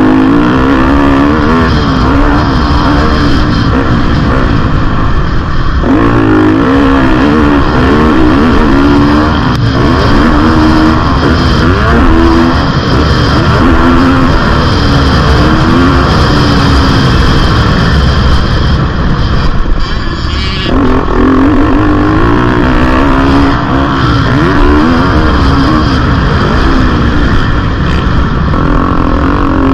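2022 GasGas MC250F four-stroke single-cylinder motocross engine revving hard under riding load, its pitch rising and falling over and over as the bike is ridden and shifted around the track. The engine note drops away briefly about twenty seconds in, then picks up again.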